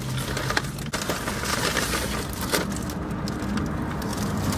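Paper fast-food bag crinkling and rustling as a hand rummages inside it, in a run of irregular crackles.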